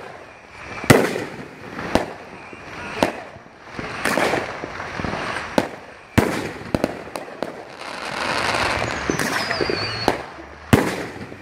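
A 500 gram repeater firework cake (World Class Evil Clown) firing shells one after another: a string of sharp launch reports and bursts, the loudest about a second in, with hissing washes between shots and a brief falling whistle near the end.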